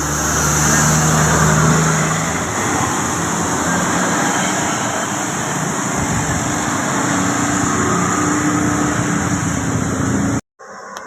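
A bus passing close by on the road: loud engine and tyre noise with a steady low engine note at first. The sound cuts off suddenly near the end.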